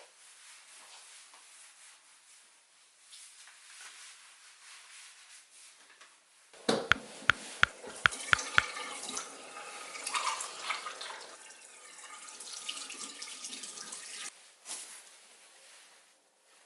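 Water running from a tap into a sink. It comes on louder about halfway through with a quick series of sharp clicks, and runs until it shuts off near the end.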